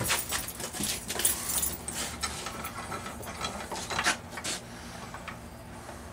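Bench vise being cranked down tight: irregular clicking and rasping of the screw and handle, with two sharp clacks about four seconds in, then quieter.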